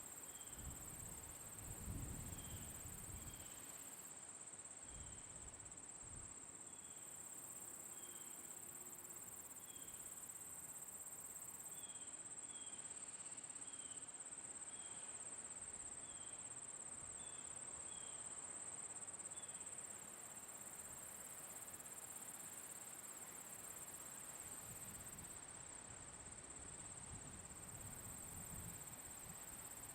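Crickets singing in a continuous high trill. Short higher chirps repeat irregularly through the first two-thirds. Brief low rumbles come near the start and near the end.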